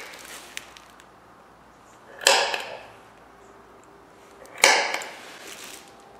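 Two sharp, hissing strikes about two and a half seconds apart, each fading away over about half a second, from hand work on the steel fitting of a speaker stand.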